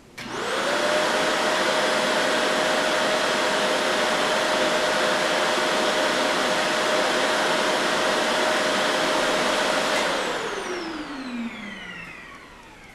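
Household electric appliance motor switched on, spinning up within half a second to a steady whine and running for about ten seconds, then switched off and winding down in falling pitch over about two seconds.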